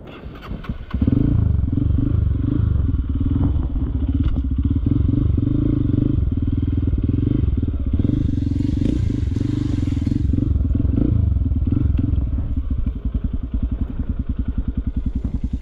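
Honda CRF dirt bike's single-cylinder engine coming up loud and sudden about a second in and held under steady throttle, then dropping to a slower, lumpy chug of separate beats near the end.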